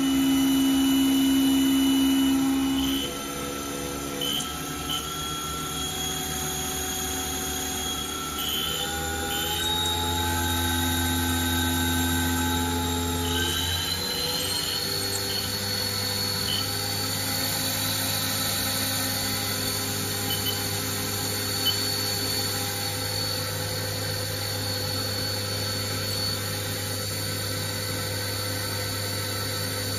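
Haas VF-0E CNC mill's belt-driven spindle running with no load, its whine stepping up in pitch three times as the speed is raised to about 6,000 rpm, then holding steady. It runs smoothly, its slack drive belt freshly tightened.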